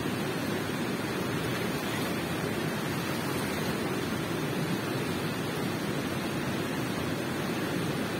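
Water rushing steadily in a cave: an even, unbroken noise weighted toward the low end, with no separate splashes or drips.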